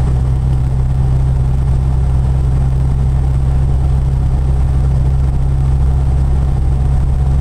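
Car engine running steadily: an even, low drone that does not change.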